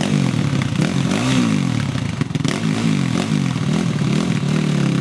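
450cc single-cylinder quad bike engine revved up and down about five times in short throttle blips, coming quicker after the first.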